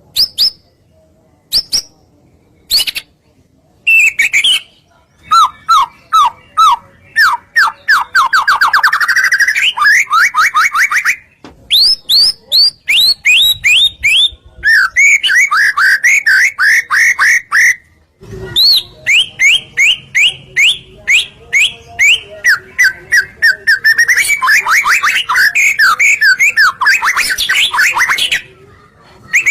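White-rumped shama (murai batu) in full vigorous song. It opens with short phrases separated by gaps, then sings long runs of fast repeated sweeping notes and trills, broken by two brief pauses.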